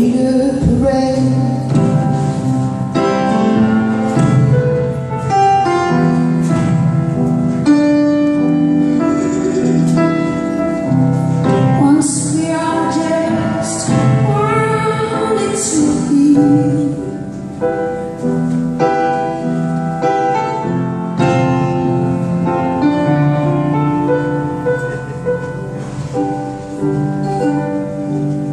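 Live music: a woman singing a slow song to her own grand piano accompaniment.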